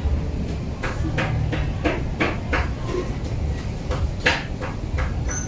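A kitten eating from a small food bowl on concrete: irregular light clicks and taps, two or three a second, over a steady low rumble.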